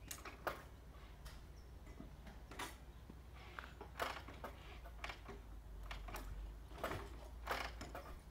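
Kick-starter and controls of a 1949 Harley-Davidson FL Panhead being worked for a cold start: scattered sharp mechanical clicks and clacks at irregular intervals, with the engine not yet firing.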